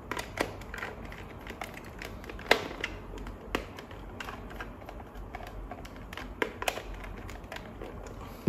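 Irregular plastic clicks and taps from handling a digital multimeter's case, as it is being closed back up over its 9V battery and circuit board.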